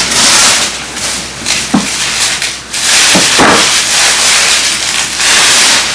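Loud rustling and crinkling of gift packaging being handled, in several swells, with a few brief squeaks.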